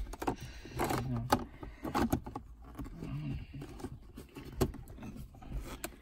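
Car interior trim being handled as the gear knob is screwed back onto the shift lever and the leather gear gaiter and its plastic surround are pressed into the centre console: scattered clicks, knocks and rustles.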